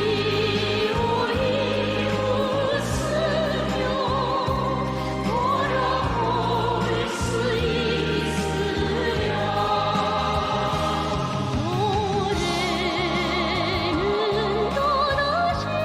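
North Korean pop song: vocals sung with strong vibrato over an orchestral backing and a steady bass line.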